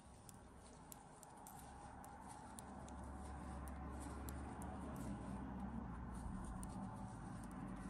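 Metal knitting needles clicking lightly against each other, with yarn rubbing, as stitches are worked by hand: faint, irregular small clicks. A low hum underneath grows louder partway through.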